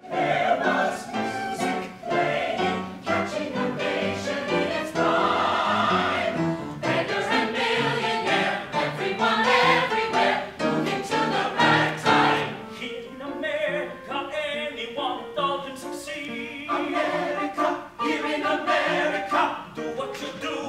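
Musical-theatre cast singing: a full ensemble, then a man's solo voice with a wide vibrato in the second half.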